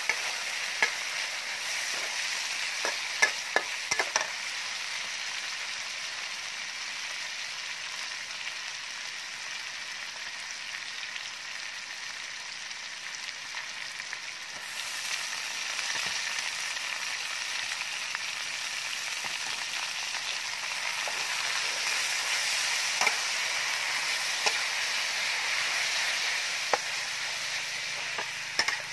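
Pork belly sizzling steadily in hot oil in a steel wok, with a metal spatula clinking and scraping against the pan, the clinks coming mostly in the first few seconds and again near the end.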